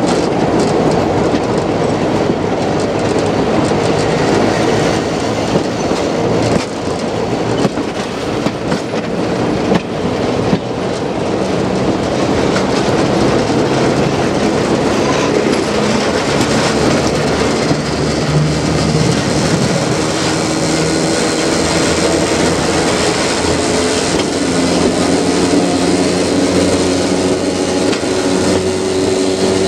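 Class 33 'Crompton' diesel locomotive running with its train, heard from a window on the train: its Sulzer eight-cylinder engine under power, with the clatter of wheels over the track. The engine's steady note comes through more clearly in the second half.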